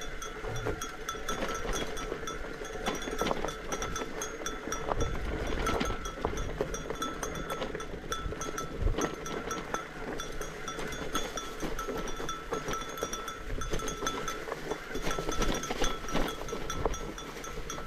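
A small bell jingling almost without pause over the rattle and knocks of a fat bike riding down a rough dirt trail.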